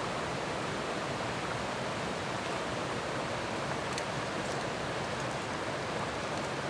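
Mountain brook rushing and splashing over rocks, a steady, even rush of water.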